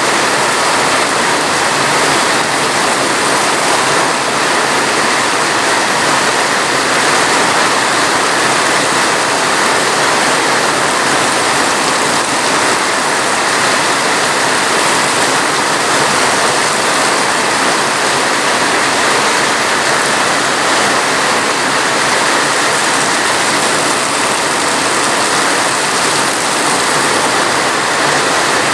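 Heavy rain falling steadily: a dense, even hiss with no break or change.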